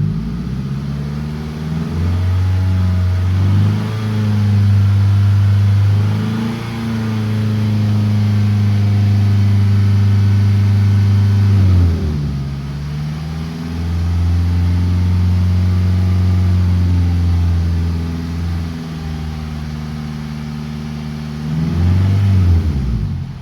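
2003 Toyota Camry exhaust through a newly fitted Magnaflow muffler, the engine revved up and held near 3,000 rpm for about ten seconds. It drops back, is held up again for several seconds, then gets a short blip near the end before falling back to idle.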